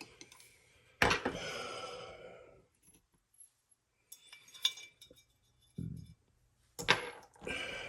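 Small steel tools and gun parts clinking on a workbench: a sharp metallic clink about a second in and another near the end, each ringing on briefly, with a few light ticks between.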